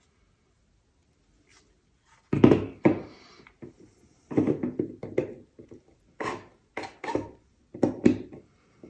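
Hands working on the control box and knobs of a Minelab Excalibur II metal detector. After a couple of seconds of quiet there is a run of knocks, clicks and rubbing as small plastic and metal parts are handled against a hard surface.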